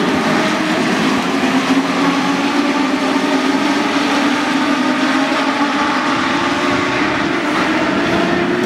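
A pack of Legends race cars running at racing speed, their motorcycle engines giving a loud, steady blend of several overlapping engine notes, with one note climbing in pitch near the end.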